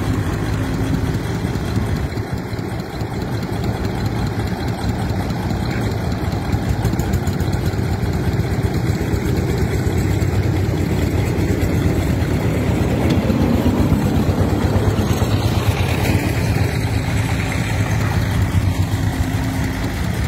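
Diesel engines of a Komatsu mini excavator and a three-wheeled công nông farm truck running steadily while the excavator loads sand into the truck's bed.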